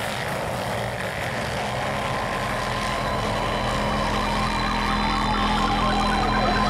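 A pack of sidecarcross outfits' motorcycle engines racing hard together as the field accelerates away through sand. In the second half a wavering melody fades in over the engine noise.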